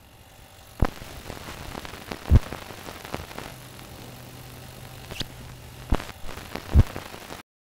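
Steady hiss of a camera microphone with several dull thumps of hands and bare feet landing on the ground during handstand moves, the loudest about two and a half seconds in and near the end, plus a brief high squeak about five seconds in. The sound cuts off abruptly just before the end.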